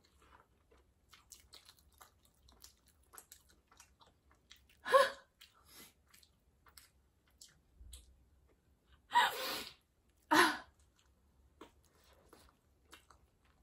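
Quiet chewing of a soft cream-filled donut, with small wet mouth clicks. Three short bursts of laughter break in, one about five seconds in and two close together around nine to ten seconds.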